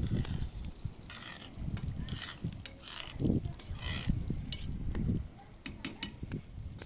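Metal ladle stirring stew in a metal cooking pot, scraping and clinking against the pot in short repeated strokes, with a few sharp taps in the second half. A low rumble runs underneath.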